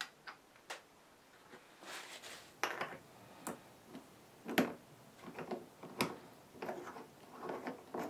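Faint, irregular clicks, taps and light scraping as the greased e-bike freewheel body and its closing nut are handled and turned by hand. A few sharper clicks are scattered through.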